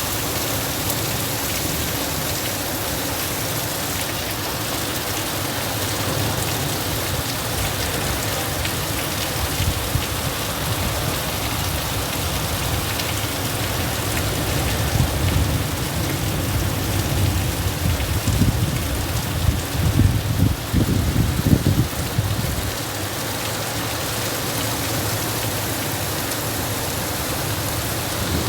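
Heavy rain falling steadily in a windstorm, with a stretch of strong, irregular low rumbling gusts from about halfway through until near the end.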